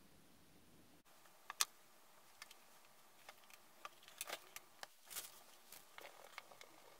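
Faint handling sounds of clay slab work: scattered light taps and clicks as clay slabs and a tool are moved and set down on a cloth-covered table. The sharpest tap comes about a second and a half in, and a busier run of taps and rustles falls a little past the middle.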